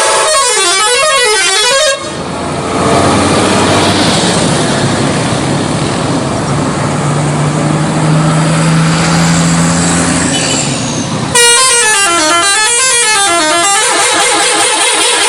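'Telolet' multi-tone bus horn playing its warbling up-and-down melody for about two seconds, then a stretch of loud engine and road noise. The horn's warbling melody starts again about eleven seconds in and runs on.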